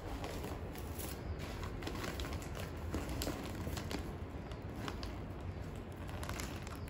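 Plastic gift wrapping crinkling and rustling in the hands as a package is untied and opened, a run of small irregular crackles and ticks over a steady low rumble.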